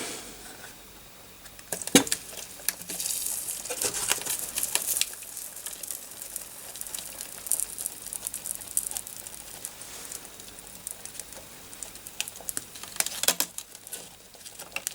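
Flux sizzling and crackling where the fluxed motherboard connector pins meet the molten solder in the solder pot, with a sharp click about two seconds in and denser bursts of crackle around four seconds and near the end.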